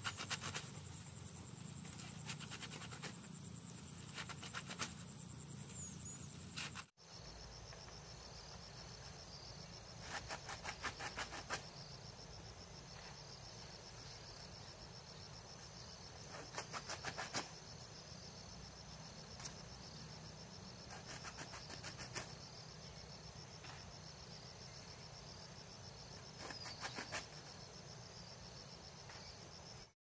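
Faint outdoor ambience of insects: a steady high buzzing, broken every few seconds by short bursts of rapid clicking.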